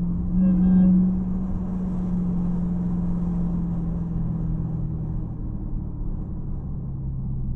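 Dodge Hellcat's supercharged 6.2-litre Hemi V8, fitted with a Legmaker cold air intake, running with a steady drone. A brief louder swell with a higher tone comes about half a second in, and the engine's pitch drops about four seconds in.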